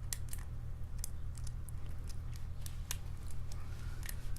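Light, irregular metallic clicks of a lock pick and tension wrench working the pins inside a padlock's core, over a steady low hum.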